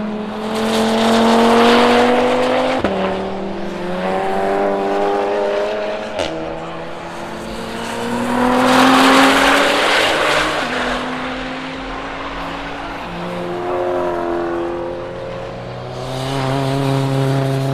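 Time attack race cars passing at speed, engines revving up and shifting up several times, swelling in loudness three times as cars go by. A sharp crack comes about six seconds in.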